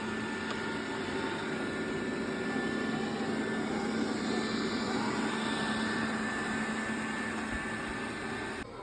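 Xiaomi Robot Vacuum S10+ running: the steady whir of its suction fan with a constant hum, like an electric fan. It cuts off abruptly near the end.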